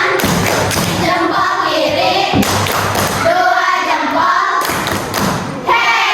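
A group of children singing together, with repeated thumps through the song.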